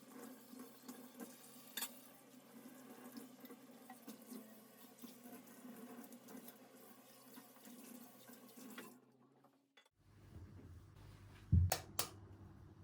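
Kitchen tap running into a sink for about nine seconds, then turned off; near the end, a sharp knock and a couple of clicks.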